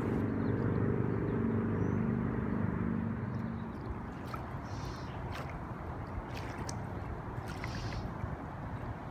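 A passing motorboat's engine hums steadily and stops being heard about three and a half seconds in, over the steady rush of the fast-moving river, with a few faint clicks after that.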